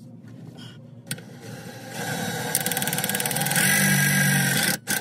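Power drill driving a self-tapping screw through a hose clamp into the van's sheet-metal underbody. The motor builds up about two seconds in, runs hardest near the end, then stops abruptly, followed by a few sharp clicks.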